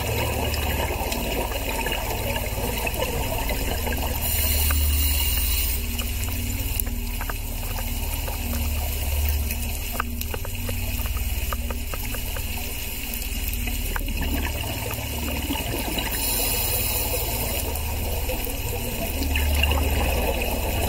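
Underwater sound on a scuba dive: a steady low rumble with scattered faint clicks, broken by two rushes of scuba regulator exhaust bubbles about four seconds and sixteen seconds in.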